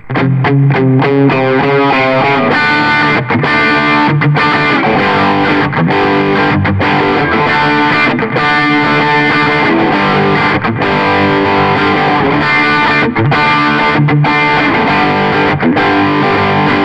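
Electric guitar with an overdrive preset on a Valeton multi-effects processor, played as R&B-style lead phrases: a quick run of short notes in the first two seconds, then longer sustained notes and licks.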